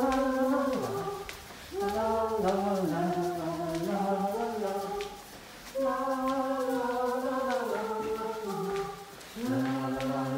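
A cappella choir singing slow, held notes in four phrases, with a short breath between each.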